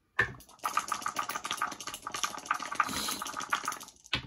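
Dice rattling as they are shaken in a cup, a fast dense clatter lasting about three and a half seconds, ending in a sharp click just after four seconds.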